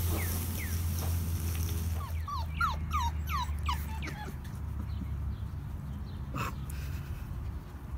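Puppy whimpering in a run of short, high, falling cries, two or three a second, that fade out after about four seconds.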